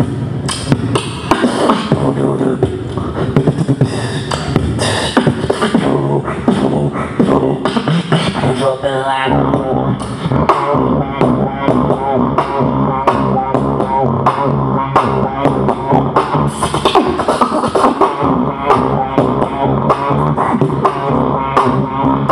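Solo beatboxing into a cupped handheld microphone: a continuous stream of vocal drum hits and sharp clicks over sustained, humming bass tones, with a warbling passage about nine seconds in.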